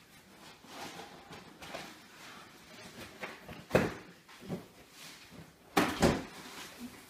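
Cardboard box being opened by hand: rustling and scraping of cardboard flaps with scattered knocks, the loudest about four seconds in and again about six seconds in.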